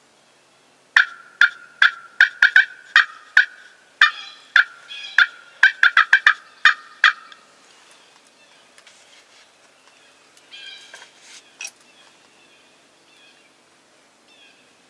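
Wild turkeys calling: a loud, irregular run of about eighteen sharp, clipped notes over some six seconds, then a fainter, shorter flurry of similar notes near the end.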